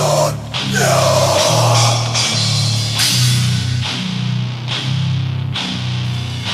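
Beatdown hardcore music: heavily distorted, low-tuned electric guitars chugging a riff over a drum kit, with cymbal crashes about once a second in the second half.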